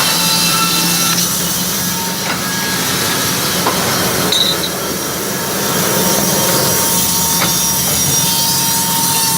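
Wood-Mizer band sawmill running and sawing wood: a steady, loud hum and hiss with a few faint knocks.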